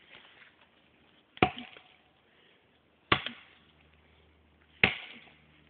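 Axe chopping into a standing tree trunk: three heavy strikes, evenly spaced about 1.7 seconds apart.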